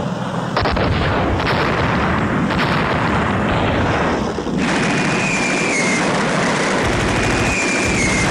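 Wartime explosion sound effects on a soundtrack: four heavy blasts about a second apart, then a dense, continuous din of battle. Through the din a high whistle dips slightly in pitch, twice.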